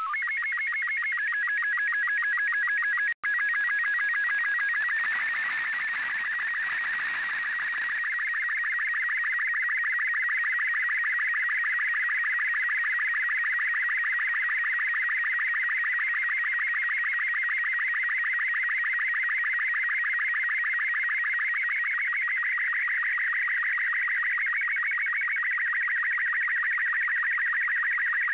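Slow-scan television (SSTV) picture signal from the LAPAN-A2 (IO-86) satellite's FM voice repeater, received by a software-defined radio. It is a steady stream of warbling tones repeating in a fast, even pattern as each scan line of the image is sent. Static hiss mixes in from about four to eight seconds in, and the signal drops out for an instant about three seconds in.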